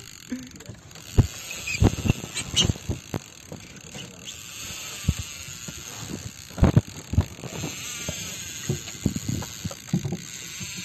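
A fishing reel being worked against a big fish on the line: mechanical clicking and ratcheting from the reel, with irregular sharp knocks.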